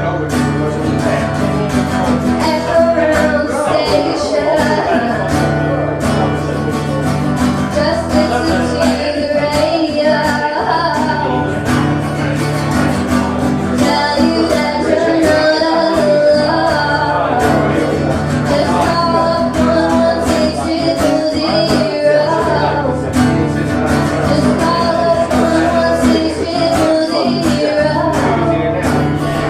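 A live band performing a song: a voice singing over strummed guitar, with held low bass notes underneath.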